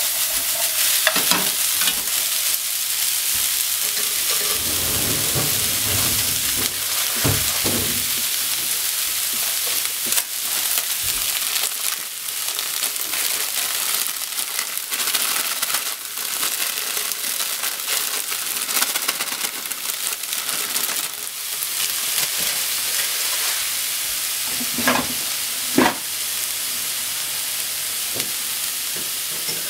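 Chopped cabbage sizzling steadily in a hot frying pan while it is stir-fried with a wooden utensil, with a few sharp knocks of the utensil against the pan, two of them close together near the end.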